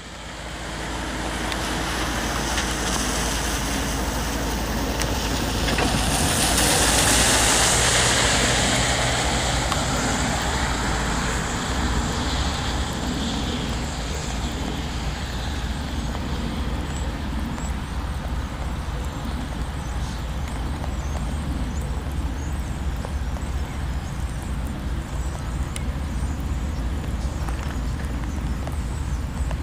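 Freight train rolling past: a steady rumble with rail and wheel noise that swells about seven seconds in, then settles to an even roar.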